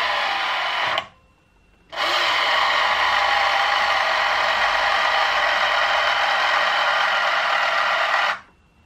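Electric door mirror motor on a BMW E28 whirring as the mirror glass is driven: a run of about a second, a short pause, then a longer run of about six seconds that stops suddenly. The mirror, which had not moved when its switch was toggled, is now working.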